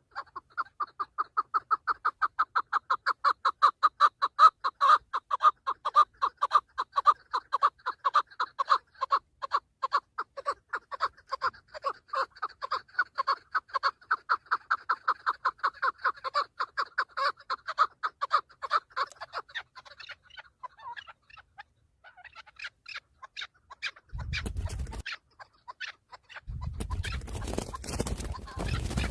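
Chukar partridge calling: a fast, even run of clucking notes, several a second, that goes on for about twenty seconds and then stops. Near the end come bursts of low rushing noise.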